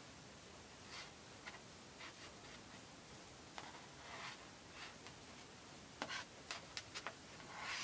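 Faint rustling and scraping of cords being threaded and pulled through a knot by hand. A quick run of small sharp ticks comes about six seconds in, and a louder rustle comes near the end.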